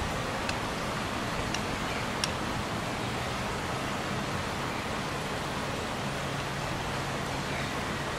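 Steady outdoor rushing ambience of distant traffic rumble and flowing river water, with a few faint short high ticks in the first two or three seconds.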